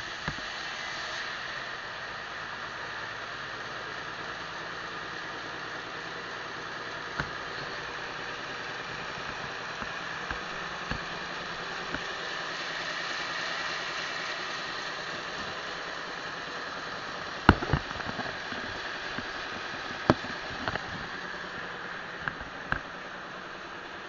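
Sawmill saw and its drive running steadily, with scattered sharp knocks, the two loudest about three-quarters of the way through.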